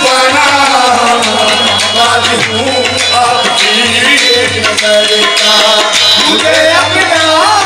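Qawwali music: tabla drumming under voices singing long, wavering melodic lines.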